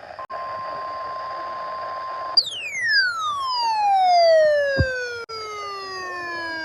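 A steady electronic tone near 1 kHz plays over a hiss for about two seconds. It fits the 1050 Hz weather radio alert tone. An electronic siren then starts high and glides steadily down, starting over from the top about five seconds later, with a short thump partway through.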